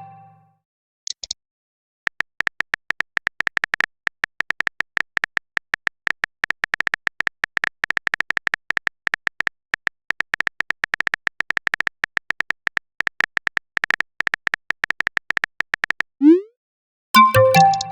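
Phone typing sound effect: a fast, uneven run of short high beeping clicks that lasts about fourteen seconds. Near the end comes a short rising swoop, then a chime: a message-sent or message-received notification sound.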